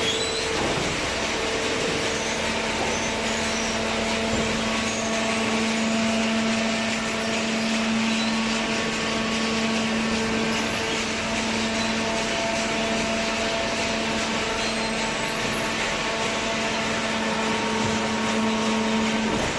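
Hydraulic waste-paper baler running: its electric motor and hydraulic pump give a steady hum and whine over machine noise, with a lower steady tone setting in about two seconds in.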